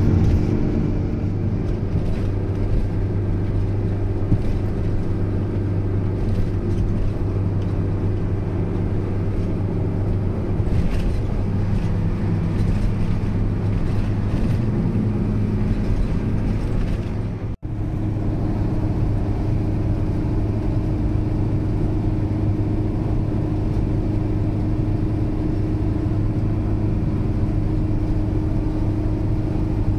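Steady engine and road noise inside a camping car's cab at highway speed, an even low hum that breaks off for an instant a little past halfway.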